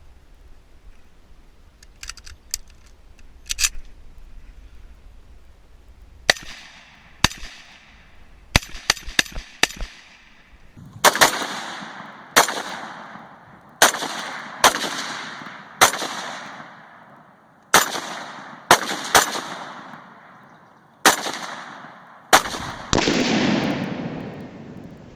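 Ruger Mini-14 .223 semi-automatic rifle firing: a few lighter shots, then a string of about ten sharp shots roughly a second apart, each with an echoing tail. Near the end a steady hiss starts suddenly.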